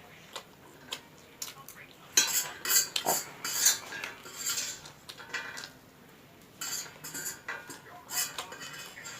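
Eating utensil clinking and scraping against a bowl while stirring and picking up instant noodles: a few light clicks, then busier spells of scraping and clinking.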